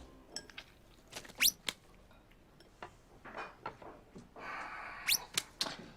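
Quiet ambience with a few brief, high-pitched bird chirps that rise steeply in pitch, the loudest about a second and a half in and again near the end, with soft scattered ticks between them.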